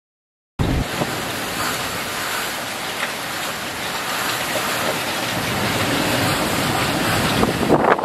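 Typhoon wind and driving rain, a loud steady rushing noise with gusts buffeting the microphone, starting abruptly about half a second in. Near the end the gusts come harder in sharp bursts.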